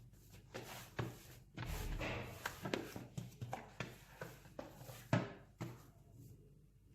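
Yeast bread dough being handled and worked by hand on a kitchen surface: a series of soft, irregular knocks and handling noises, with a short rustle about two seconds in.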